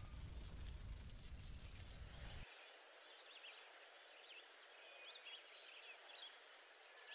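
Faint outdoor sound. For the first two and a half seconds there are light clicks and scrapes of knives peeling carrots over a low rumble. That cuts off abruptly, leaving quiet bird chirps and a steady high whine.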